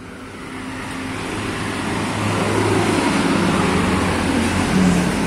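Road traffic noise with a vehicle engine running, fading in over the first couple of seconds and then holding steady.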